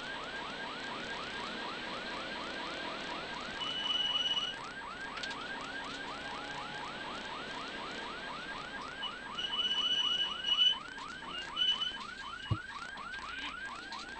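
Warning siren on a rally course car yelping rapidly, about five sweeps a second, over steady engine and road noise. A brief high tone sounds twice and a single knock comes near the end.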